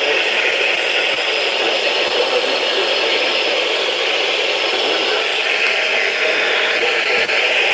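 Radio static: a steady hiss from a radio receiver that has just been turned up, with no voice or alert tones coming through.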